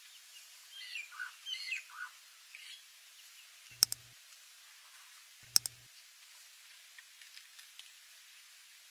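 Several short bird chirps about a second in over a faint hiss of outdoor ambience, then two loud, sharp double mouse-click sound effects about two seconds apart, from a like-and-subscribe button animation.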